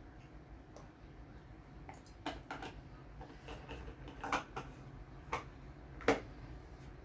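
A handful of short clicks and knocks from a plastic drinking bottle being handled after a drink, the sharpest one near the end.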